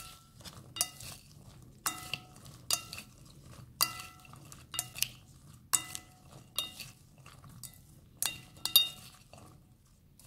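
Serving spoon knocking against a glass salad bowl while tossing a vegetable salad: about a dozen irregular clinks, each with a short glassy ring, the loudest a little before the end.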